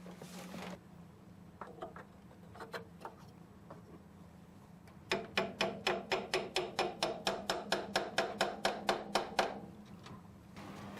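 A hammer tapping: a few separate taps, then about halfway through a fast, even run of around twenty strikes at roughly five a second that stops suddenly.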